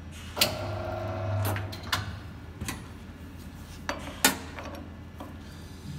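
Metal clinks of a T-handle hex wrench against the steel blade and screws of a guillotine paper cutter as the blade screws are fastened. The first clink, about half a second in, rings briefly, and a sharper, louder one comes a little past four seconds, over a low steady hum.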